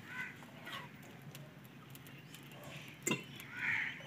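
Mostly quiet, with a metal spoon clinking once against an aluminium ghee tin about three seconds in.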